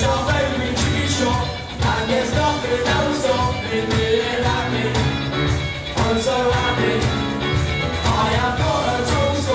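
Live rock band playing: electric guitars, bass and drums with a steady beat, and two young male singers singing into microphones through the PA.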